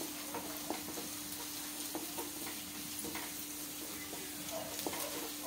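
Onions, green chillies and ginger-garlic paste frying in oil in a kadai, a steady sizzle, while a spatula stirs them and clicks and scrapes against the pan now and then. This is the sauté stage where the ginger-garlic paste cooks until its raw smell goes. A faint steady hum lies under it.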